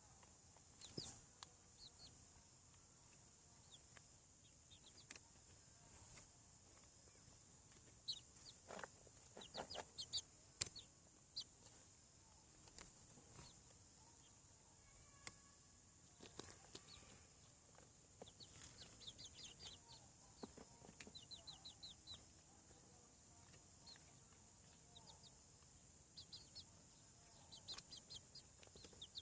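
Young chickens, about seven weeks old, peeping and clucking faintly in short quick runs of high calls, mixed with scattered sharp clicks.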